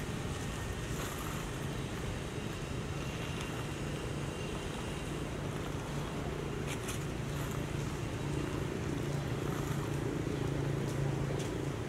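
Steady low outdoor rumble with a low hum that grows stronger over the last few seconds, and a few brief faint crackles.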